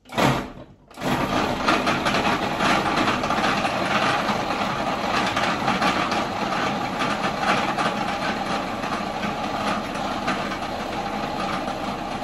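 Food processor motor running in its small bowl, blitzing dried apricots, garlic, chili flakes, lime juice and oil into a paste. A brief pulse comes first, then about a second in it runs continuously and loud.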